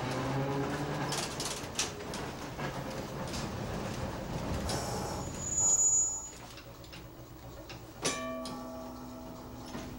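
Philadelphia Nearside streetcar 6618 running, heard from inside the car. Its motors whine, rising in pitch at the start, and the car clicks and rattles along the track. A brief high-pitched squeal, the loudest sound, comes about halfway through, and a clang after about eight seconds is followed by a ringing tone.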